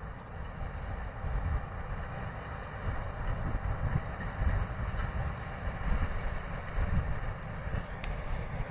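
D80 combine harvester running as it harvests soybeans: a steady mechanical rumble that swells and eases unevenly.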